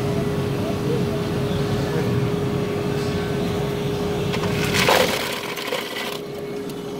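Steady low hum with a constant mid-pitched tone. About five seconds in there is a brief loud crackling rustle, after which the low rumble drops away.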